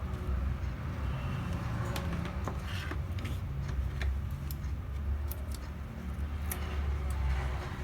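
Scattered light clicks and taps of small laptop parts being handled while a hard disk is swapped for an SSD, over a steady low background rumble.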